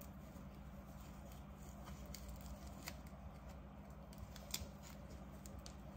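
A few faint, scattered ticks and crackles as sticky tape is worked free of a pigeon's leg feathers by hand, over a low steady hum.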